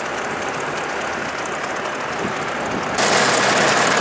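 Ford Jubilee tractor's engine running steadily. It turns suddenly louder and harsher about three seconds in, as the sound jumps to right at the engine.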